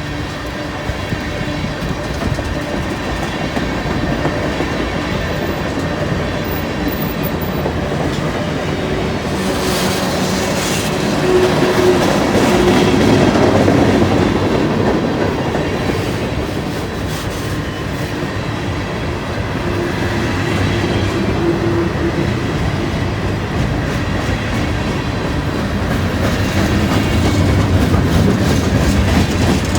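Freight train rolling past on a steep grade: a steady, loud rumble with wheels clacking over the rail joints, swelling about a third of the way in and again near the end.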